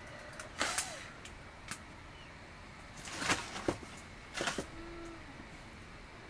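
A string of short, sharp noises, loudest in a cluster about half a second in and another between three and four and a half seconds in. A faint cat meow follows just after the second cluster.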